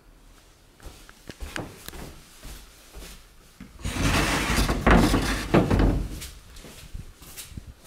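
A fusuma sliding door on a closet is slid open along its wooden track, a rumbling slide of about two seconds starting about four seconds in. A few light knocks come before it.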